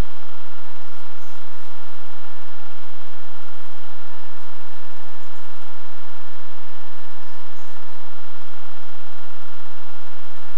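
Steady mechanical whirring and hiss with a few constant tones, the sound of a Super 8 film projector running. There is no chuffing rhythm from the steam engine on screen.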